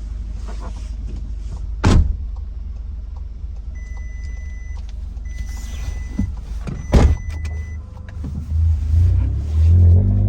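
Tuned Seat Cupra engine with downpipe and resonator delete idling with a steady low hum, heard from the cabin. Two sharp knocks come about two seconds in and again about seven seconds in, three long electronic beeps sound in between, and near the end the engine note rises.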